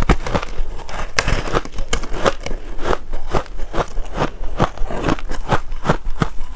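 Pink-dyed ice being bitten and chewed, a steady run of crisp crunches at roughly three a second.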